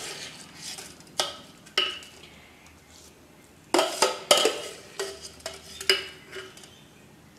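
Metal spoon knocking and scraping against a metal pan as washed rice and split moong dal are stirred into boiling water. A few separate clinks, then a closer run of clinks from about four seconds in.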